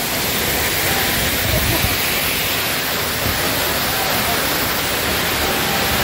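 Waterfall pouring into a shallow pool close by: a steady, even rush of falling water.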